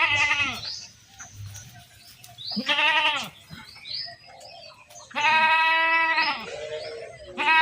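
Goats bleating, four separate calls with wavering pitch; the third, a little after the middle, is the longest.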